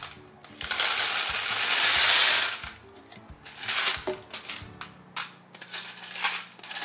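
Small decorative pebbles poured from a jar into a clear plastic box: a rattling rush that lasts about two seconds, followed by scattered clicks as the stones are spread and settled by hand.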